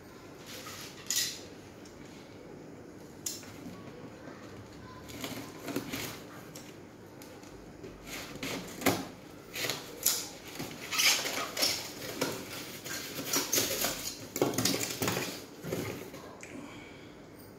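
Cardboard packaging being handled: a small carton's tape cut open and its flaps, foam inserts and a part pulled out, giving irregular scrapes, rustles and knocks, sparse at first and frequent in the second half.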